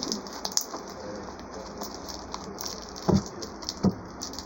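Slime being worked by hand: a steady run of small sticky clicks and crackles, with two louder pops about three and four seconds in.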